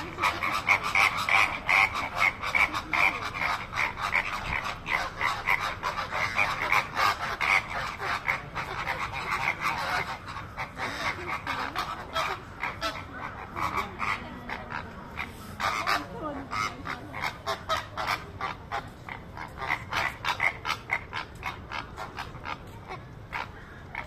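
A flock of greater flamingos calling together: a dense, continuous chatter of short, rapid honking calls, louder and busier in the first half.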